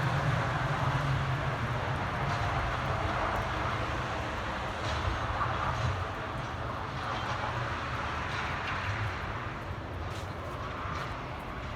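Snowplow truck's engine running with a steady low hum and a noisy rush, slowly getting quieter.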